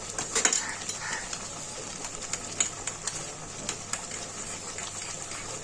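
Light clicks and taps of a spoon scooping sour yogurt into a pan of gravy, with a cluster of taps about half a second in, over a faint steady hiss.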